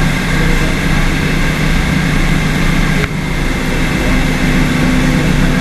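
Tour boat's engine running steadily with a low hum, heard from inside the glass-bottom hull, with a brief click a little past halfway.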